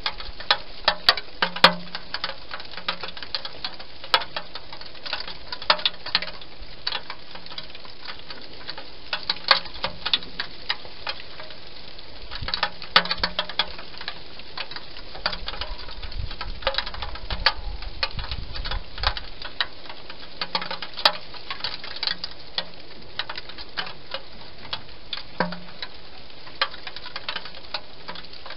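Wild hedgehog eating dry food inside a plastic feeding box: irregular crunching and clicking, sometimes in quick runs.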